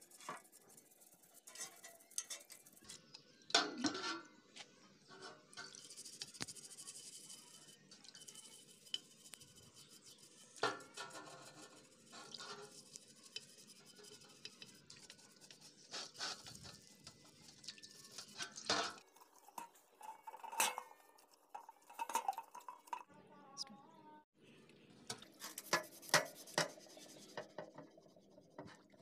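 A small brush scrubbing a clear plastic water filter housing in a basin of soapy water: irregular scratchy brushing strokes, with a few sharp knocks as the housing is handled.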